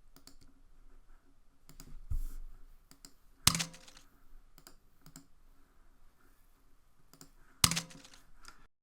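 Computer mouse and keyboard clicking: scattered light clicks, with two sharp loud clicks about three and a half seconds in and near the end.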